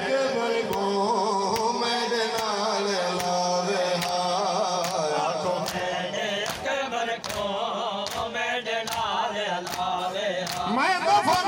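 Male voices chanting a noha (Shia lament) over a microphone, with matam, hands striking bare and clothed chests in rhythm. The sharp slaps come a little more than once a second and quicken in the second half.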